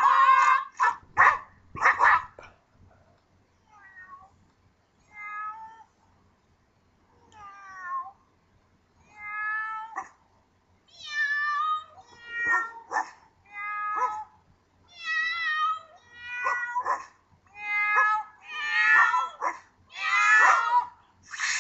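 A run of cat meows set to a novelty song's beat: a few scattered at first, then about one a second, each wavering in pitch and getting louder toward the end. A few loud, shout-like bursts come in the first two seconds.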